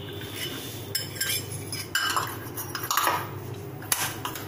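Small stainless-steel bowls clinking and scraping against each other and the pressure cooker's rim as washed lentils are tipped into the cooker: several light metallic knocks spread over a few seconds.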